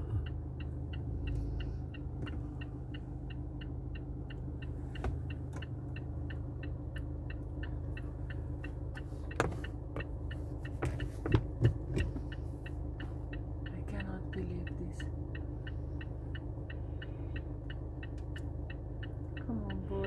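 Car engine idling steadily while the indicator relay ticks about twice a second; a few sharp knocks come about halfway through.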